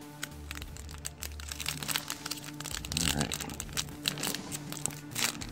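Foil Pokémon booster pack crinkling and tearing as it is pulled open by hand, with a low rumble underneath in the first half.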